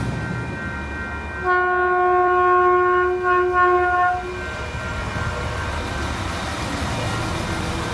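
Sprinter commuter train, a Siemens Desiro diesel multiple unit, sounding its horn as it pulls into the station. The horn is a held chord of several tones that starts about a second and a half in and breaks briefly, lasting about two and a half seconds. The steady rumble of the train rolling past follows.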